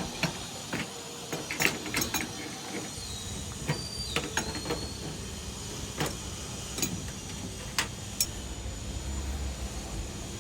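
Irregular metallic clicks and taps of a spanner working flare nuts tight on the copper refrigerant pipe connections of a split air conditioner.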